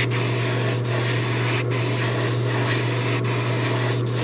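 Airbrush spraying paint onto a lure body: a steady hiss with brief dips a little under a second apart, over a steady low hum.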